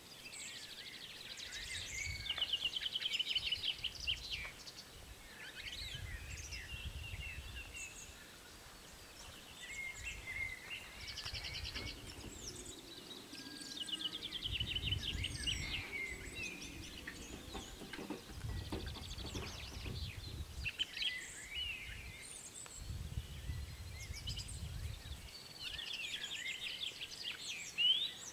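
Several songbirds singing and trilling, with gusts of wind rumbling on the microphone. A faint low hum in the middle comes from the crossing's barrier booms lowering.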